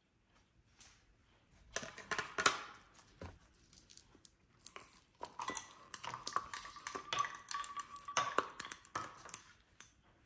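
Ice cubes popped out of a twisted silicone ice cube tray and dropped into a filled drinking glass, knocking and clinking against the glass. There is a first flurry of clicks about two seconds in, then a longer run of clinks with the glass ringing briefly.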